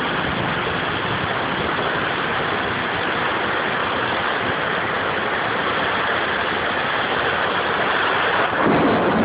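Heavy storm rain, a steady even hiss. Near the end, a gust of wind buffets the microphone.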